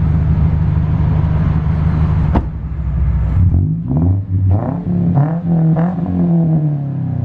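Car engine running steadily, then revved in several quick blips, each rising and falling in pitch, before dropping back toward idle. There is a single sharp click a little before the revs begin.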